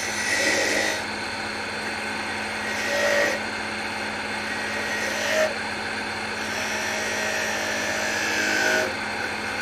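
Wood lathe running with a steady motor hum while a turning tool cuts the spinning wood, the cutting noise swelling briefly several times.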